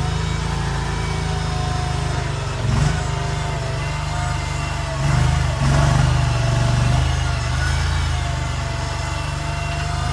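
Mini skid steer engine running steadily, with a higher wavering whine over it. The engine note swells briefly under load about three seconds in, then again for a couple of seconds around the middle.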